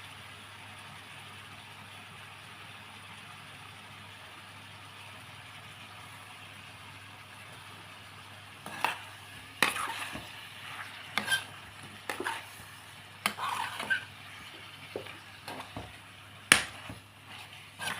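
Food frying in a pan with a steady sizzle; about halfway through, a utensil starts stirring, scraping and knocking against the pan in irregular clacks.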